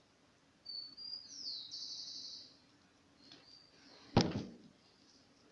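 A small bird chirping: a high, warbling, trilled call lasting about two seconds. Near the end comes a single sharp knock.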